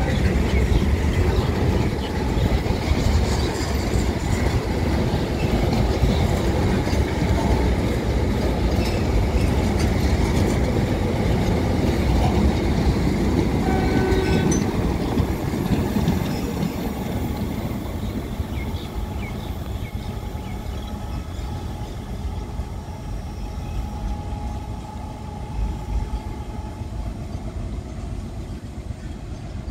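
Train running along the rails with a heavy rumble and clatter. A brief horn note sounds about halfway through, and the train then slowly fades as it moves away.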